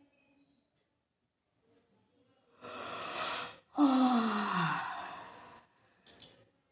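A person yawning: a long breathy intake of breath, then a loud voiced out-breath that falls in pitch as it fades. A short click follows near the end.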